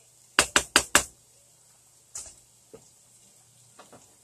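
A wooden spoon rapped four times in quick succession on the rim of a saucepan, then a single clack about two seconds in as a lid is set on the pan, and a few lighter knocks near the end.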